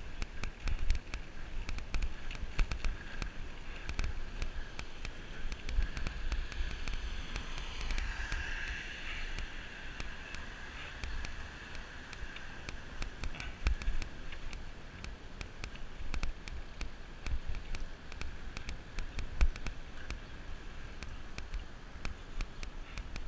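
Wind buffeting the microphone of a GoPro on a moving bicycle, with a gusty low rumble and frequent small clicks and rattles from the bike rolling over the pavement.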